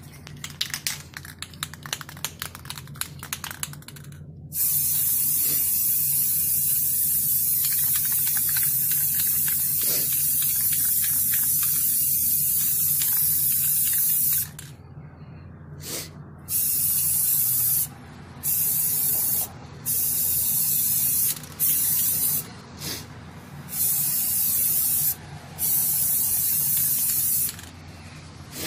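Aerosol spray-paint can spraying onto a sheet-metal stove top: one long hiss of about ten seconds, then a run of short bursts of a second or two each. It follows a few seconds of rapid rattling.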